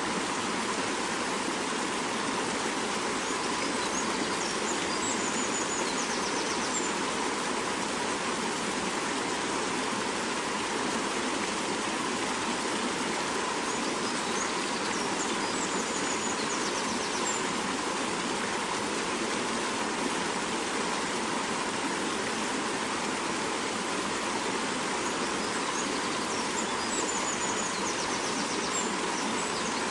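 Fast-flowing mountain river rushing steadily over its bed, an even, unbroken rush of water.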